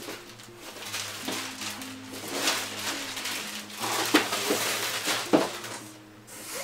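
Thin clear plastic wrapping crinkling and rustling as it is handled, with a couple of sharper crackles about four and five seconds in, over quiet background music with a simple melody.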